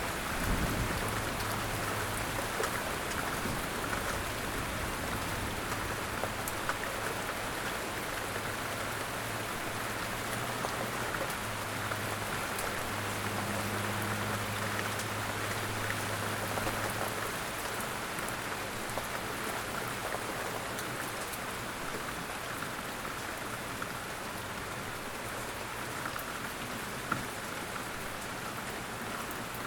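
Steady outdoor rain falling, with individual drops ticking on surfaces. A faint low hum comes and goes underneath.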